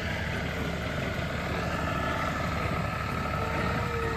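An engine running steadily, a dense low rumble with fast pulsing and a faint steady whine above it.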